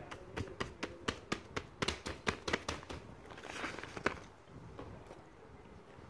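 Rapid run of sharp clicks, about four a second for some three seconds, as the bubbles of a silicone pop-it fidget toy are pressed one after another. Then a short rustle of handling and a single last click.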